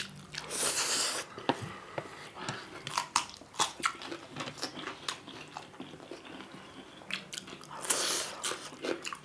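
Close-miked eating of spicy instant ramen noodles: wet chewing with many small mouth clicks and smacks, and two longer slurps, one about a second in and one near the end.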